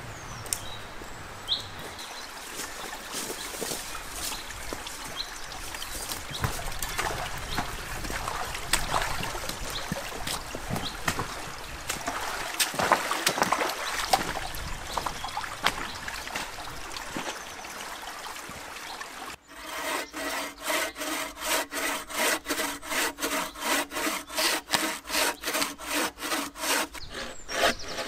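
A hand saw cutting through a log propped on a stump, in quick, even back-and-forth strokes, about two to three a second. It starts about two-thirds of the way in and is the loudest sound. Before it there is only quieter rustling and footsteps along a woodland stream.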